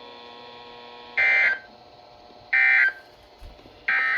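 NOAA Weather Radio end-of-message signal: three short, buzzy digital data bursts (the SAME 'NNNN' code), about 1.3 seconds apart, marking the end of a flood warning broadcast. A faint steady hum runs under the first second.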